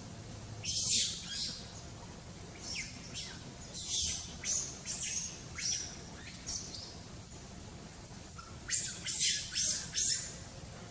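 Macaque giving short, high-pitched calls in clusters, the loudest a quick run of four near the end.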